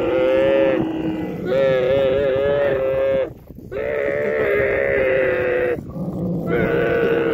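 Camel calf bawling: a run of long, drawn-out calls, each lasting one to two seconds, with short breaks between them.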